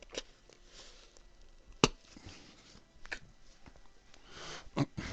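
A man hiccuping: short, sharp hics, four of them, the loudest about two seconds in, with a breathy intake before the last.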